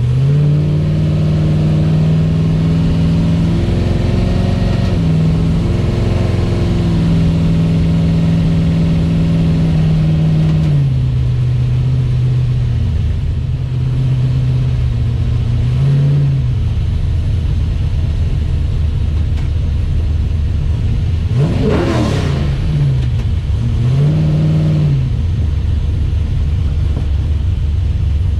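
Chevy S10's 400 small-block V8 with long-tube headers, heard from inside the cab while driving. It pulls up and holds steady at first, eases off about ten seconds in, then gives a short blip and later two sharp throttle revs, the first climbing high and dropping back quickly.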